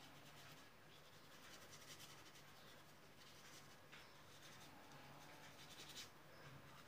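Faint scratchy strokes of a paintbrush dabbing and dragging paint across the painting, coming and going irregularly, in near silence with a low steady hum.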